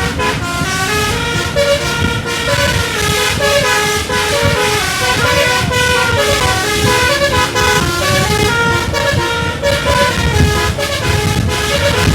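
Tour bus's basuri telolet horn, a multi-trumpet air horn, playing a fast tune of stepped notes without a break, over a low rumble.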